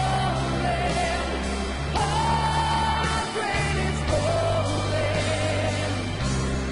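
Live rock band playing a metal power ballad, with a male lead singer holding long sustained notes over electric guitar, drums and keyboards.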